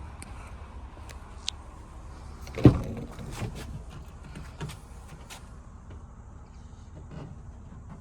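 A van door shuts with one heavy thud about two and a half seconds in, followed by a few lighter knocks and clicks, over a low steady rumble.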